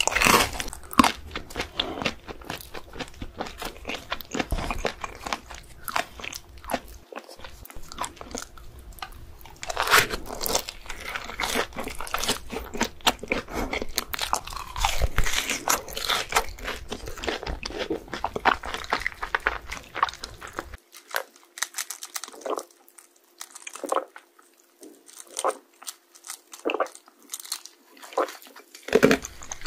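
Close-miked bites and chewing of crunchy fried chicken coated in crushed cheese-ball crumbs, a dense run of crackling crunches. About two-thirds of the way through the crunches thin out into separate, spaced bites.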